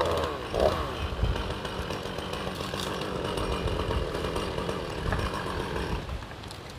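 Chainsaw revving up at the start, then running steadily as it cuts into a bodhi tree branch, easing off near the end.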